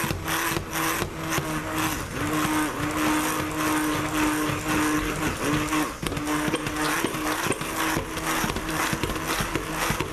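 Stick blender running in a crock pot of thick hot-process goat's milk soap, its motor whining steadily while it is pushed up and down through the batter in rhythmic churning strokes. The blending brings the cooked, oatmeal-textured soap back to a smooth soap consistency.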